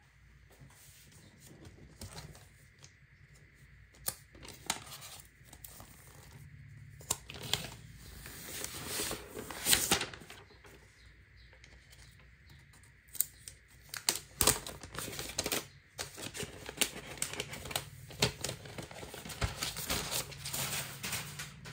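White protective wrap being peeled and pulled off a new tablet, crinkling and crackling in irregular bursts that grow busier after a few seconds, with the loudest crackles about ten seconds in and again around fourteen seconds.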